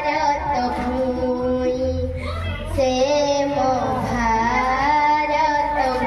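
A child singing a slow song, holding long notes that bend up and down, with a short breath break about two seconds in.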